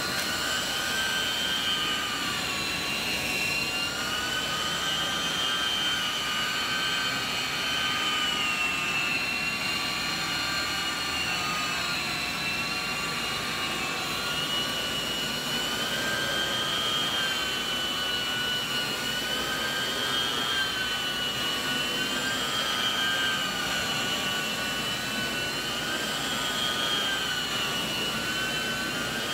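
Truck-mounted hot water extraction machine's vacuum whining and rushing through the hose and rotary carpet cleaning tool as it extracts from carpet. The steady high whine wavers slightly in pitch every few seconds as the head is worked across the carpet.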